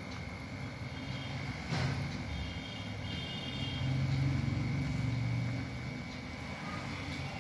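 Soda water poured in a thin stream into a glass mug of lemon juice and salt, fizzing as it foams up, over a steady low rumble that swells about halfway through. A single click comes about two seconds in.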